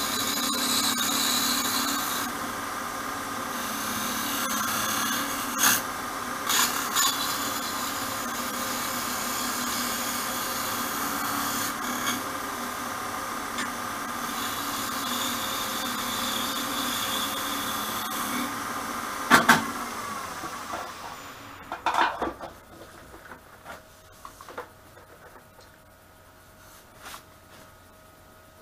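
Wood lathe running while a small dovetail scraping tool cuts a chuck recess into the face of a spinning wooden disc blank: a steady cutting hiss over the motor hum, with a few knocks. Near twenty seconds in there is a sharp knock, the cutting stops, and the lathe winds down to quiet.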